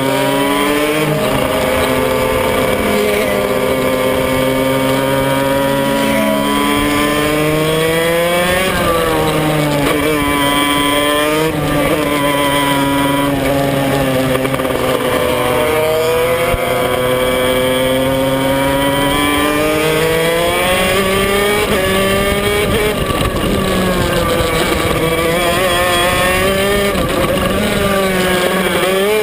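Intrepid-Maxter KZ shifter kart's 125cc two-stroke engine heard from on board at racing speed. Its pitch climbs on the straights and drops sharply again and again as the kart shifts and brakes for corners.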